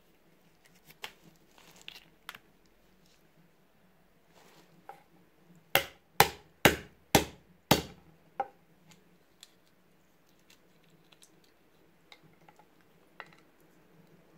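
A wooden mallet with a metal toothed face knocking down on walnuts on a wooden cutting board, five sharp blows about two a second, cracking the shells. Before and after come faint clicks and crackles of the nuts being handled and the broken shells picked apart by hand.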